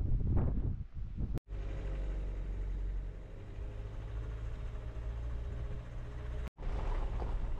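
Wind buffeting the microphone in gusts, broken by two abrupt cuts; between the cuts a steadier low rumble with a faint hum runs for about five seconds.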